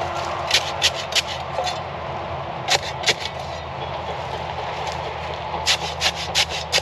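Kioti CK2610 diesel tractor engine idling steadily, with clusters of short sharp crunches and scrapes over it: a few in the first two seconds, two about three seconds in, and a quick run near the end.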